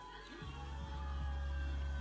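Background music with held notes and a deep low note that comes in about half a second in.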